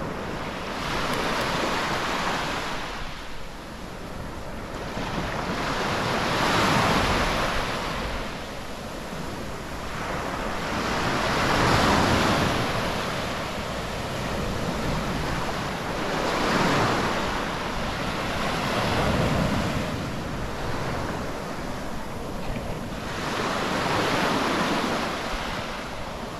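Mediterranean sea waves breaking on a sandy beach, the surf swelling and falling back about every five seconds.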